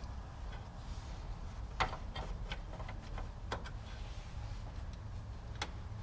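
A few short, sharp metallic clicks over a steady low hum, from the rusty rear parking brake cable and its fittings being worked loose at the drum brake backing plate.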